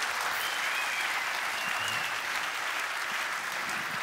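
Audience applauding, a steady even clapping from a full house.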